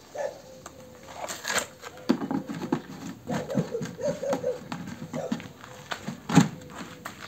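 Clicks, rattles and knocks of a plastic chainsaw and a fuel bottle being handled on gravel after refuelling, with one sharper knock about six seconds in.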